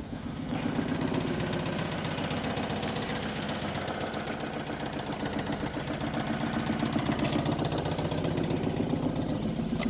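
Opel Corsa 1.0's three-cylinder petrol engine idling steadily with an even, rhythmic rattle, which the owner puts down to the bonnet rattling.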